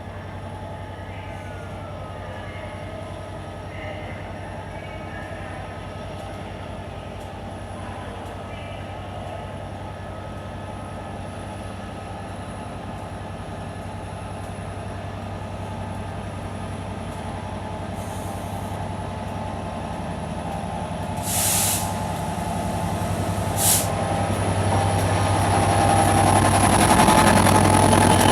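A train at a railway station: a steady low locomotive hum, two short sharp hisses about two-thirds of the way through, then a rumble that grows louder toward the end as the train draws closer.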